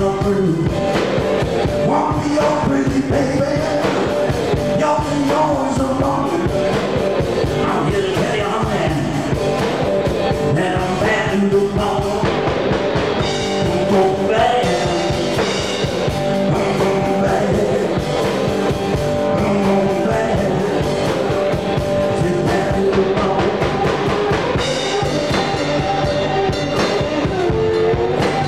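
Live rock band playing a rockabilly-style number: drum kit keeping a steady beat under electric guitar, loud and continuous.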